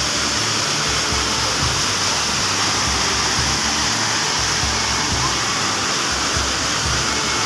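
Waterfall splashing down over rocks close by: a loud, steady rush of water.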